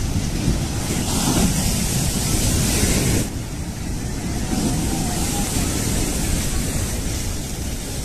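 Strong cyclone wind with heavy rain, the wind buffeting the microphone into a rough low rumble under a steady hiss. A gust swells the hiss from about a second in to about three seconds in.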